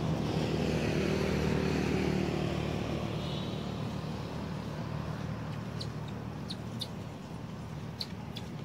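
A motor vehicle's engine running off-camera, its low hum slowly fading as it moves away. A few short, sharp high clicks come near the end.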